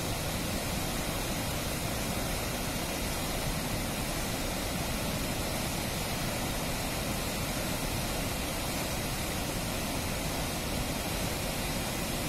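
Steady rushing of fast river water flowing over rocks below a dam, an even noise with no separate splashes.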